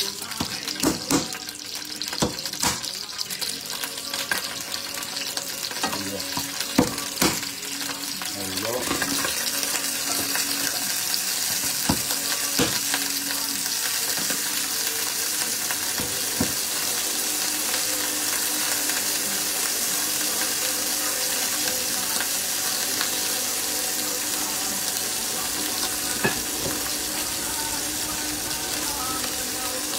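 Kitchen knife chopping parsley on a wooden board, a run of sharp knocks over the first several seconds; then lobster pieces frying in a pan, a steady sizzle that holds from about nine seconds in.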